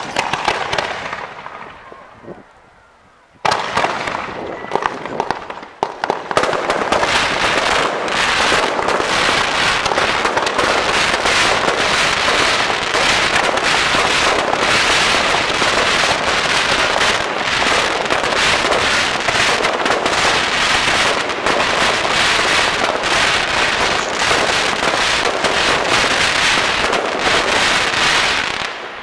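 Aerial fireworks: one bang at the start that fades away, then from about three and a half seconds a dense, rapid barrage of launches, bursts and crackling that keeps up until just before the end.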